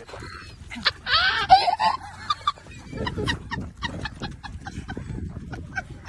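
A black duck calling, with a loud squawk about a second in followed by many short repeated calls, over steps crunching on gravel.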